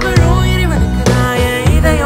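Background music: a song with a strong bass line and a wavering, gliding melodic lead.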